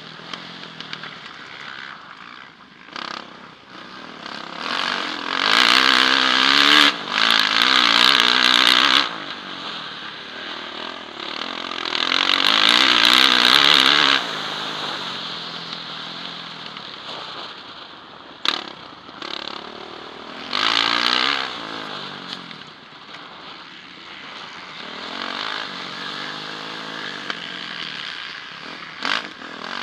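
A Yamaha motocross bike's engine heard from the rider's helmet camera, revving up and down as it is ridden hard round a dirt track. There are loud full-throttle stretches about five, twelve and twenty seconds in, with the engine backing off between them.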